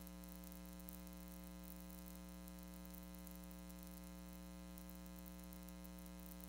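Near silence: a faint, steady electrical hum with its overtones over a low hiss.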